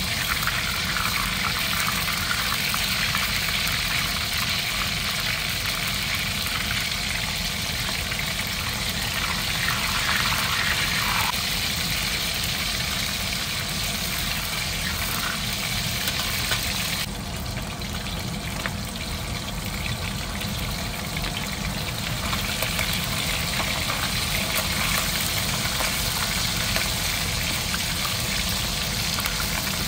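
Ikan puput fish frying in hot oil: a steady sizzle, with the hiss thinning for a few seconds past the middle, over a low steady rumble.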